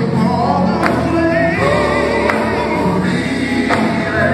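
Live gospel music: a male vocal group singing into microphones over instrumental backing, one high voice wavering with vibrato about a second and a half in.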